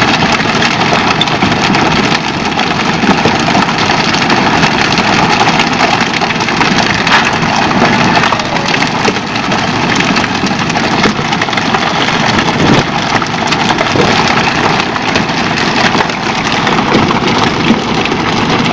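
Pole-and-line fishing boat's engine running steadily under a loud, even rush of noise.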